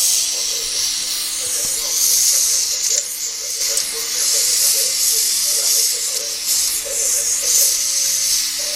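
Gas welding torch flame hissing steadily as it plays on red-hot metal.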